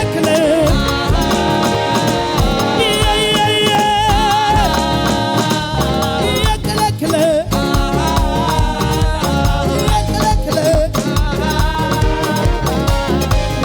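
Upbeat contemporary praise dance music with a steady driving beat under sustained melody lines.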